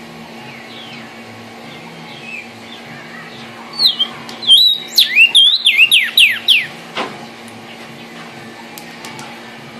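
Vermilion cardinal (cardenal guajiro) singing: a few faint chirps, then a loud burst of about three seconds of clear, down-slurred whistles, each dropping in pitch. A steady low hum runs underneath.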